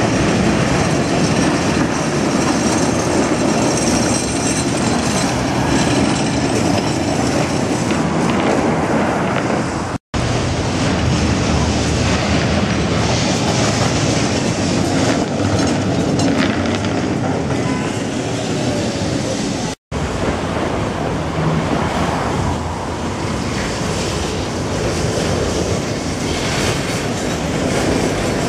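Street trams, including a Tatra T3, rolling along street track: a steady rumble of steel wheels on rail mixed with city traffic, broken twice by brief cuts to silence.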